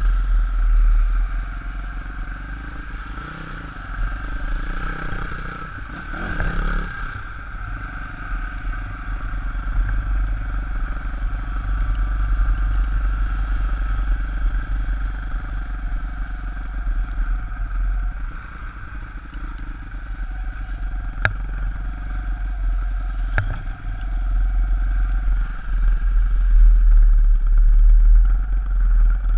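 Pit bike engine running as it is ridden, under a heavy low rumble of wind buffeting on the helmet microphone. Two sharp clicks a couple of seconds apart come about two-thirds of the way through.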